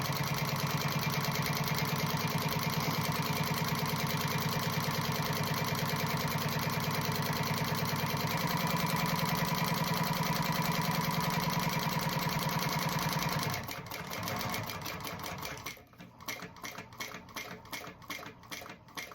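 Sewing machine running steadily at speed, top-stitching down a strap, its pitch shifting about eight seconds in. It stops after about thirteen seconds, followed by a run of slow, separate clicks.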